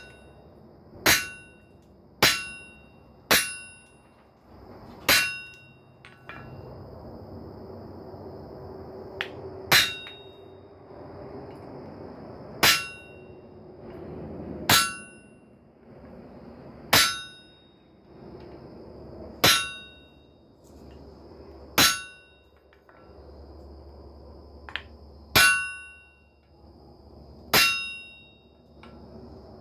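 Hand hammer striking a splitting chisel set into hot steel, each blow a sharp metallic clang that rings briefly. The first few blows come about a second apart, and after that one lands roughly every two seconds, cutting a notch to split the piece.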